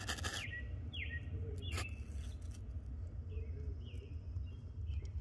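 Birds chirping: a scattering of short calls that slide downward in pitch, several in quick succession about three and a half to four and a half seconds in, over a steady low rumble, with a few sharp clicks near the start.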